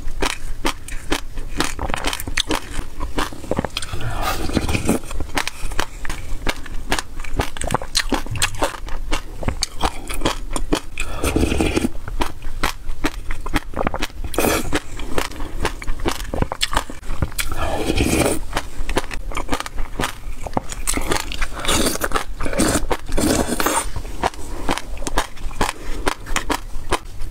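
Close-up chewing of yogurt full of passion fruit seeds and black sesame, the seeds crunching in a dense, crisp run of crackling clicks. Now and then a plastic spoon scrapes in the plastic bowl.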